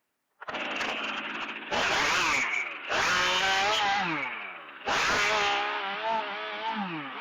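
Chainsaw starting up sharply, then revved hard three times, its pitch sliding down each time the throttle eases off.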